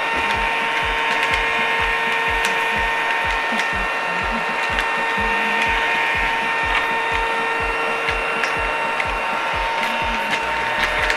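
Children's battery-powered toy vacuum cleaner running: a steady small-motor whine over a rapid rattling knock, about four a second, with scattered clicks.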